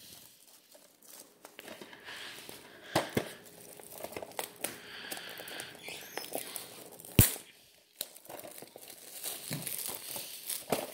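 Cellophane shrink wrap being peeled and crinkled off a DVD case, with scattered crackles and one sharp click about seven seconds in.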